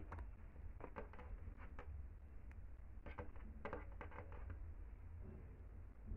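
Faint rustling and light taps as hands handle a crochet skirt and draw yarn cord through it with a metal needle, with a sharper tap at the start and scattered small sounds over the first few seconds, above a low steady hum.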